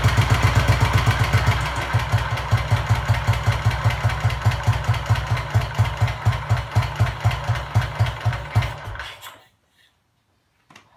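1951 Vincent Comet's 500cc single-cylinder engine running through a straight-through, unbaffled silencer, loud with an even, thumping exhaust beat. It runs a little faster at first, then settles to a slow idle whose beats slow further until the engine stops about nine seconds in.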